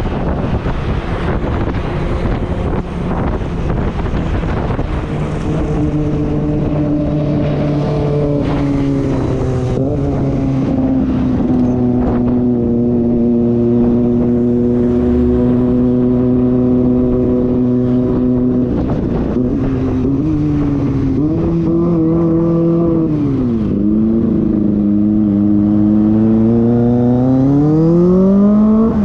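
Motorcycle engine running on the move. Its pitch holds steady for long stretches, dips briefly about three quarters of the way through, then climbs steeply near the end as it revs up.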